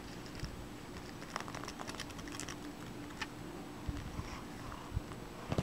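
Cat rubbing his face against the bristles of a round hairbrush, making scattered small scratchy clicks and rustles, busiest a second or two in.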